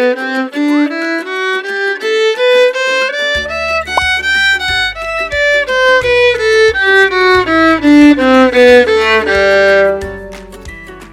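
Music with a violin playing a stepping melody, a few notes a second, that climbs and then falls. A bass part comes in about a third of the way through, and the music fades near the end.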